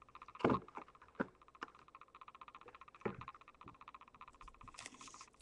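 Foil booster-pack wrappers crinkling and packs tapping against one another as they are picked up and stacked by hand: a few sharp taps, then a brief crinkle near the end.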